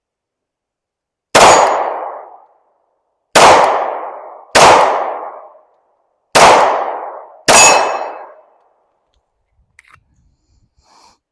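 Five shots from a Glock 43X 9mm pistol, fired at an uneven pace over about six seconds, each crack followed by a ringing echo that dies away in about a second.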